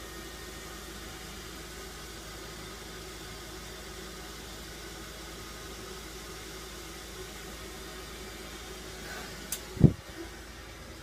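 Steady hum of a small room fan, with a faint held tone in it. About ten seconds in, a sharp click and then a heavy low thump, the loudest sound here.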